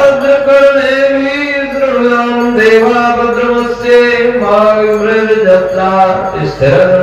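Male voice chanting a Hindu mantra for Navratri worship of Durga, in long held notes that step from one pitch to the next.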